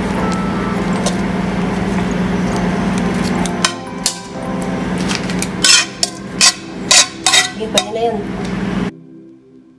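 Metal spatula scraping food out of a frying pan onto a plate, then knocking against the pan in a quick run of sharp clinks, over a steady low hum. The sound cuts off suddenly near the end.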